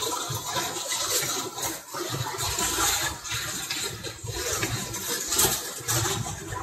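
Charcoal stick scratching across drawing paper in many short, repeated strokes.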